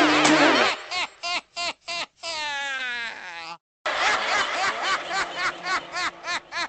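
Music cuts off about a second in, giving way to a person laughing in short rhythmic bursts. A longer wavering, drawn-out note comes midway, then a brief break, and the laughter resumes in quick bursts about three a second.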